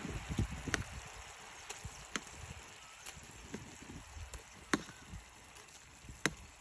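Steel kitchen tongs clicking against a plate and a cast-iron pan as fried chicken pieces are set into gravy: four sharp clicks a second or more apart, over a faint steady hiss.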